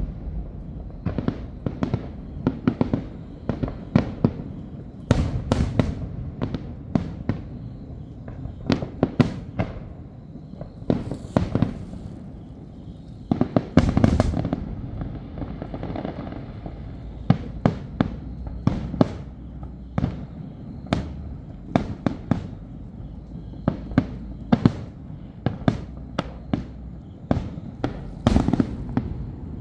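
Aerial fireworks exploding in a rapid, irregular series of sharp bangs with booming echoes, a crackling burst standing out about halfway through.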